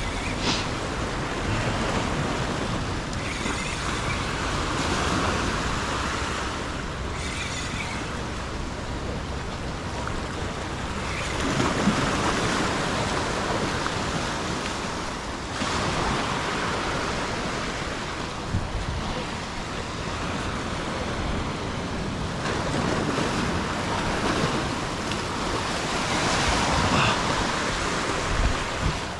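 Ocean surf washing onto the shore, the rush swelling and easing every few seconds, with some wind on the microphone.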